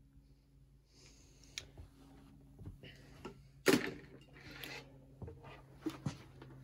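Scattered knocks, clicks and rustling in a small room over a low steady hum. One sharp knock, the loudest sound, comes a little past halfway, followed by a brief rustle.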